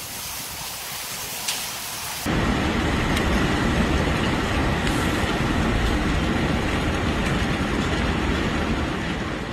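Heavy rain falling as a steady hiss. About two seconds in it changes abruptly to a louder downpour with a strong low rumble.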